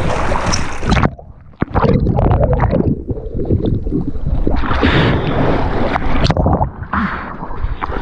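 Sea water sloshing and gurgling around a kitesurfer and his board, with wind buffeting the microphone. The sound goes muffled for a few seconds after about a second in, then splashes come back louder around five seconds and near the end.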